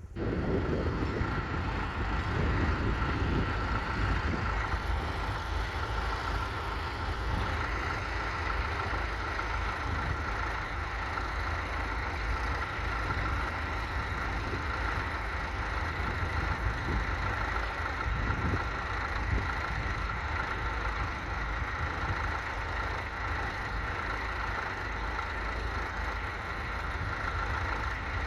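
Massey Ferguson 35 tractor engine running steadily.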